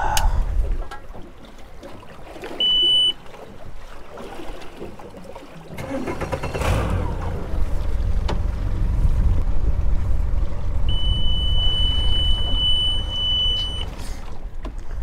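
Boat's outboard motor running with a low rumble while its warning alarm beeps: one short beep about three seconds in and a long steady beep of about three seconds near the end. The alarm signals a motor fault.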